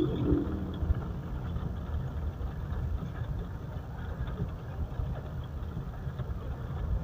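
Mitsubishi Pajero running at low speed, a steady low engine and road rumble with no high-pitched brake squeal.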